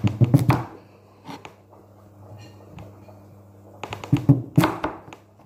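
Long serrated, saw-toothed knife being forced through the hard rind of a large squash against a plastic cutting board. There are two bursts of sharp cutting and knocking strokes, one at the start and one about four seconds in.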